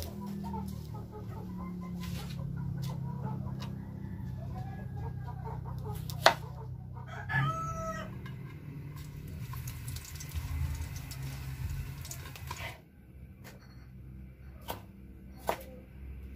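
A chicken calls once, briefly, about seven seconds in, over a low steady hum. A few sharp knife taps on a plastic cutting board are heard now and then.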